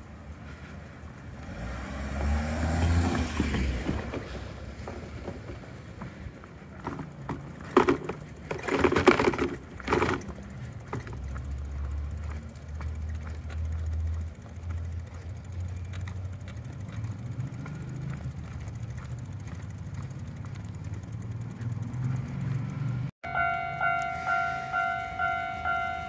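Street traffic rumble, with a vehicle passing about two seconds in and a few loud bumps around eight to ten seconds in. Near the end a level-crossing warning bell starts ringing, a repeating ding of about two strikes a second, as the crossing signals warn of an approaching train.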